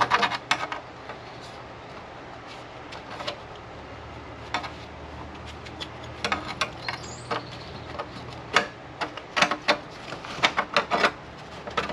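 Steel patch panel being test-fitted into a Range Rover Classic's rusted footwell: intermittent clicks, taps and light scrapes of sheet metal against the body, more frequent in the second half, over a steady low hum.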